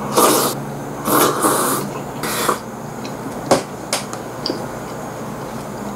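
Close-up eating sounds of a person eating a grilled-meat rice bowl with chopsticks: three short noisy slurps or sucking breaths in the first couple of seconds, then two sharp clicks of chopsticks against the bowl about halfway through.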